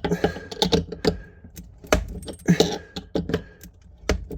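A metal wrench clicking and scraping against the tap's fixing nut under the sink as the nut is tightened, in irregular clusters of sharp clicks.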